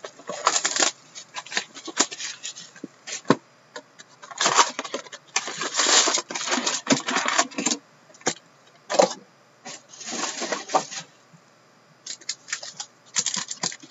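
Cardboard hobby box of Fleer Showcase hockey cards being opened and its foil-wrapped packs handled and stacked: irregular crinkling and rustling in stretches of a second or two, with a few sharp clicks.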